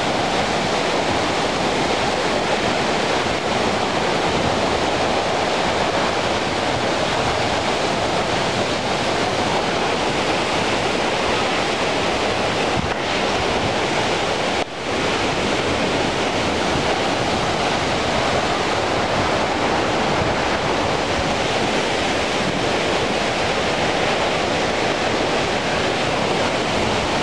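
Steady rush of a large waterfall close by, its spray-laden air also buffeting the microphone. It breaks off for a moment about halfway through, then carries on.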